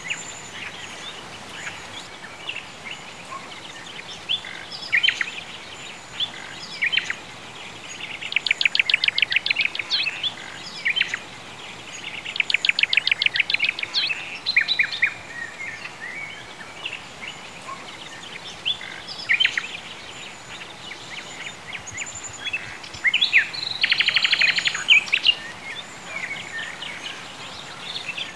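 Songbirds singing: scattered chirps and short whistled notes, with fast trills of rapidly repeated notes a few times, over a faint steady hiss.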